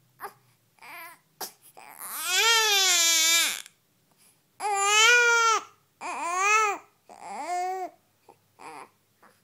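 Two-week-old newborn crying while fussing and unable to settle to sleep: a few short whimpers, then one long wail about two seconds in, three shorter wails after it, and brief whimpers near the end.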